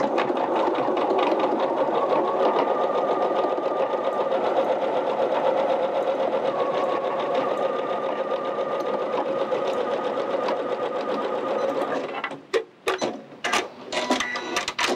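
Electric sewing machine stitching steadily at a constant speed, with a fast even beat of needle strokes, stopping about twelve seconds in. A few short clicks and handling noises follow.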